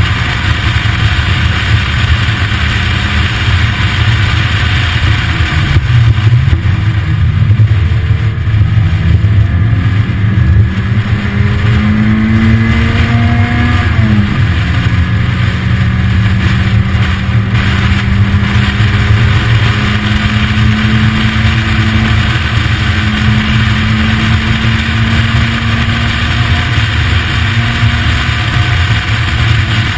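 Lotus Elise engine pulling hard uphill in an open car, with heavy wind noise on the microphone. The engine note climbs for several seconds, drops sharply with an upshift about halfway through, then climbs slowly again.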